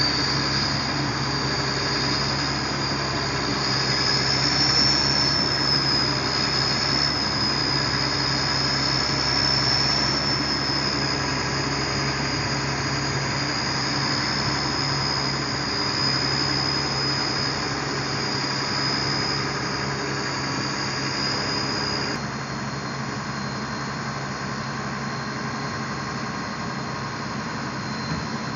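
Pindad excavator's diesel engine running steadily under load with a high whine that wavers slightly in pitch while it handles a pipe, the whine cutting off suddenly a little over twenty seconds in.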